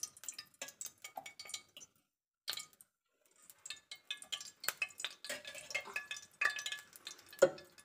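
Scattered small crackles and pops of cooking oil heating in a hot non-stick frying pan as more oil goes in, with a single louder knock near the end.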